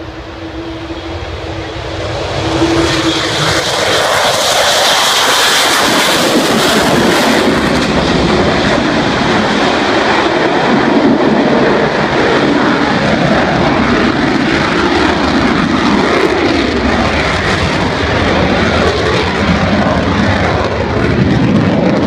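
Avro Vulcan bomber's four Rolls-Royce Olympus turbojets at take-off power: a loud jet roar that swells up about two seconds in and holds, with a high whine running through it for the first few seconds.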